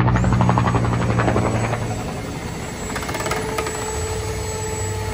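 Helicopter flying overhead, its rotor blades chopping fast and evenly over the engine hum. A bit over two seconds in it gives way to a quieter, steady hum from the shop.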